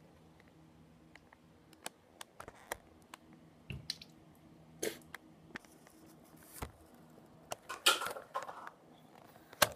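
Scattered soft clicks and crackles of a plastic water bottle being squeezed and handled. The clicks grow more frequent and louder in the second half, with a cluster of louder ones near the end.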